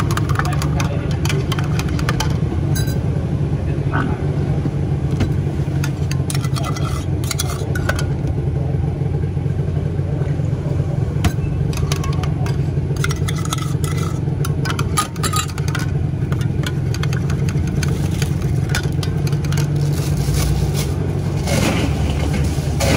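Metal spoons stirring and clinking against stainless steel cups, many light sharp ticks, over a steady low mechanical hum.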